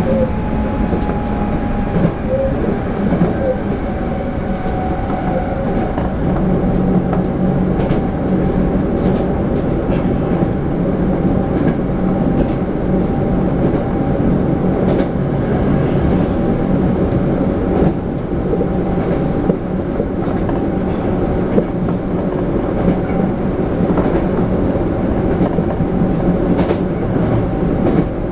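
Running noise of a Toei 5300-series subway train heard inside the passenger car: a steady rumble of wheels on rails with a steady whine, and occasional sharp clicks from the track.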